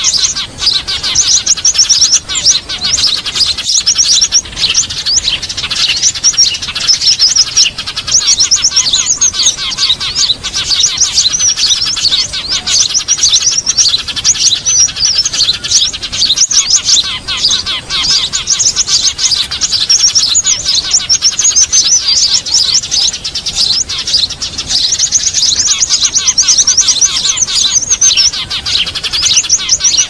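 Many small songbirds chirping and trilling at once, fast and high-pitched, overlapping without a break: a bird-lure (pikat) recording made to draw small birds in.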